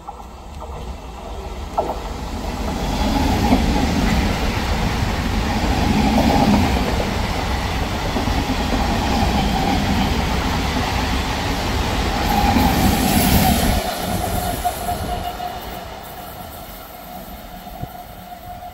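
Electric multiple unit (EMU) local train approaching and running past the platform, its noise building to a loud rush for several seconds. It then fades as the train moves away, leaving a steady whine.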